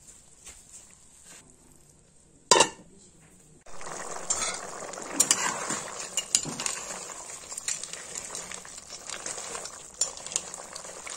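A single loud metal clank, then frying starts with a sudden sizzle about four seconds in. A metal spoon clinks and scrapes in the pan as the food is stirred.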